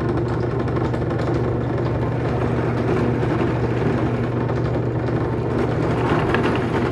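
Electric drill motor running steadily with an even hum as it cuts a slot through a piece of wood.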